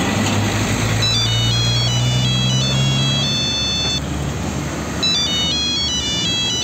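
Heavy diesel tanker trucks running and driving past, a low steady engine hum with road noise. A high electronic chime melody plays over it twice, about a second in and again about five seconds in.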